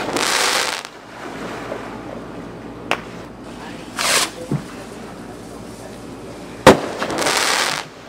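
Consumer aerial fireworks going off: a rush of noise right at the start, a faint pop about three seconds in, and another rush about four seconds in as a shell leaves its mortar tube. Near the end comes one sharp, loud bang, followed by a short rush of noise.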